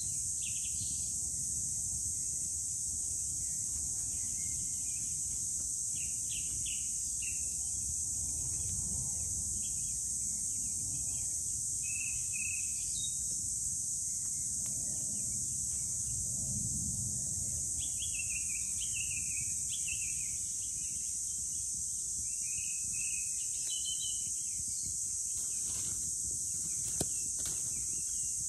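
Forest ambience: a steady high insect chorus with songbirds chirping in short phrases throughout, over a low rumble. A few sharp clicks near the end.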